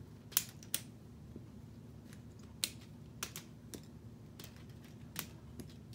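K'nex plastic pieces being unclipped and handled: sharp plastic clicks and snaps at irregular intervals, about nine in all, the loudest near the start.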